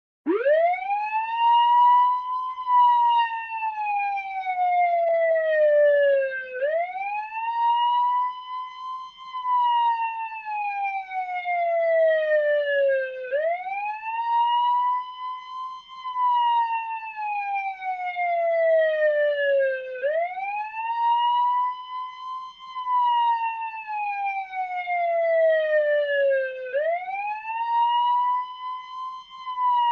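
Wailing siren that starts suddenly right at the beginning. Each cycle climbs quickly in pitch, holds briefly at the top and then slides slowly down, repeating about every six and a half seconds, four and a half times in all.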